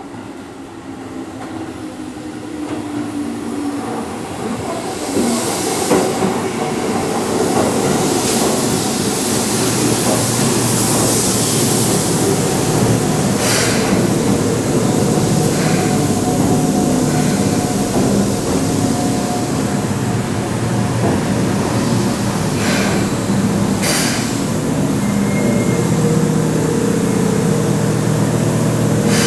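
Keihan 6000-series electric train pulling into a station and slowing to a stop alongside the platform. It grows louder over the first few seconds as it approaches, then runs steady with wheel and running noise and a low hum, broken by several sharp clicks.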